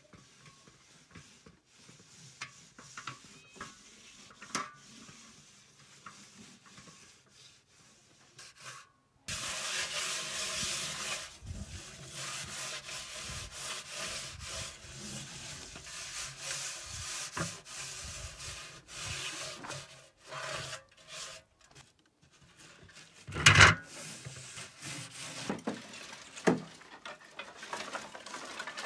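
Hands scouring a metal cooking pot with earth and straw: a long, steady rasping rub with short breaks, after some faint small sounds. Later comes a single loud knock, then quieter handling sounds.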